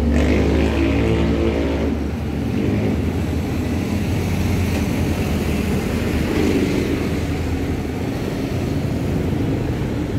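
A motor vehicle engine running, its steady hum fading out over the first two seconds, then a steady low rumble.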